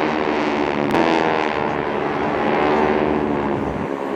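Propeller aircraft engines droning overhead, a steady many-toned hum whose pitch slowly bends as the planes pass.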